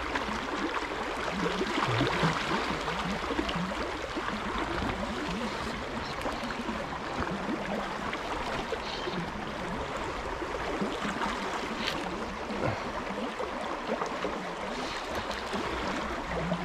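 Fast-flowing river water rushing steadily through a shallow run.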